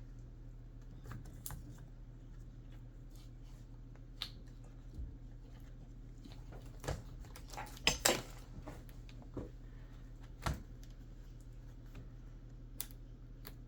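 Scattered light clicks and taps of a replacement battery being handled and seated into an open Dell XPS laptop chassis, with a sharp pair of clicks about eight seconds in and another single click about two seconds later, over a low steady hum.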